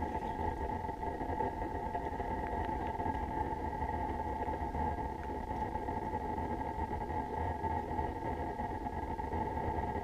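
Steady electric whine from the brushless motors of a handheld three-axis camera gimbal, holding two fixed pitches, over a low, even rumble of handling or wind on the camera's microphone.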